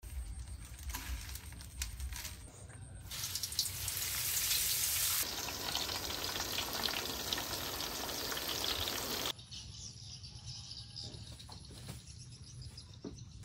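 Breaded eggplant slices sizzling in hot deep-frying oil, a loud steady hiss from about three seconds in that cuts off suddenly after about nine seconds. Before and after it there are only soft ticks from food being handled.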